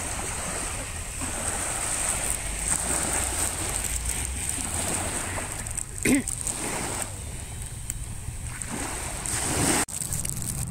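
Small waves washing onto a sandy beach, the surf noise swelling and fading every few seconds. A short pitched cry sounds about six seconds in, and the sound cuts off abruptly near the end.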